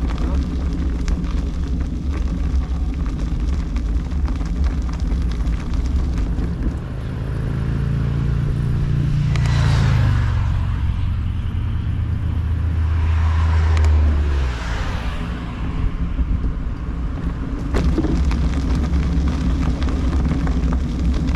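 Steady low rumble of a motor vehicle on the road, with two louder vehicle pass-bys: one about ten seconds in whose pitch drops as it goes by, and a second around fourteen seconds.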